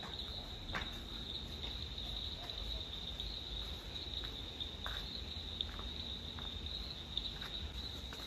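Crickets chirping in a steady, high-pitched chorus over a low rumble, with a few faint clicks.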